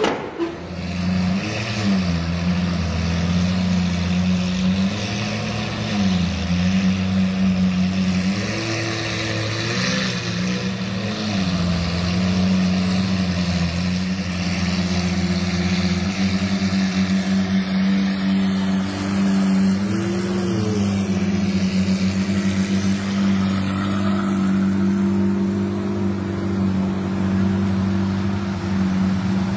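Lamborghini supercar engine idling steadily, with a few brief light throttle blips that raise its pitch for a moment and settle back.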